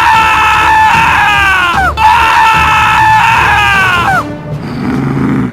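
Two long, high-pitched screams, one after the other, each held for about two seconds and then falling in pitch as it breaks off, followed by a quieter rough sound near the end.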